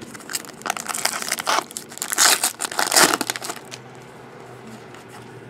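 Trading card pack wrapper being torn open and crinkled by hand: a dense run of crackles and rips, loudest about two to three seconds in, stopping before four seconds.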